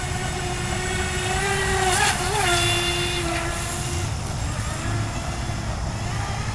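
Brushless electric motor of a radio-controlled vehicle whining at a steady high pitch as it skims across flooded grass. The pitch wavers and there is a brief rush of spray about two seconds in, and the whine fades out about four seconds in.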